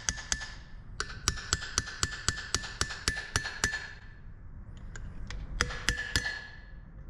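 A hammer tapping a seal installer, light metal-on-metal strikes about four a second, each with a short ring, driving the grease seal into the back of a disc brake rotor hub until it sits flush. The tapping stops for over a second past the middle, then starts again.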